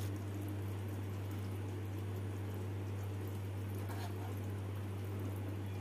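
Steady low hum under a faint even hiss, with a soft scrape about four seconds in as a silicone spatula lifts chicken drumsticks out of thick gravy in a frying pan.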